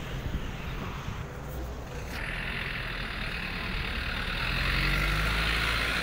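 City road traffic: vehicle engines running steadily, with a steady hiss that starts suddenly about two seconds in.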